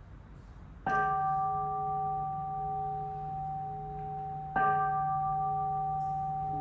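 Buddhist bowl-shaped temple bell (kin) struck twice, about a second in and again near the end. Each strike rings on with several steady tones that slowly fade. It is the bell cue just before the chant begins.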